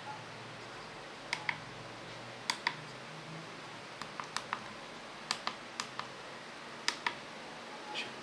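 Keys on the front panel of a TC55V CNC controller being pressed: sharp clicks, mostly in quick pairs, about a dozen spread over several seconds, over a steady hiss.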